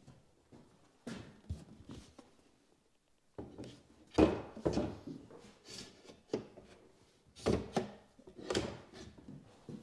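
Irregular knocks, clunks and scraping of wooden cabinet and drawer parts being handled and fitted. The loudest knocks come about four seconds in and again near the end.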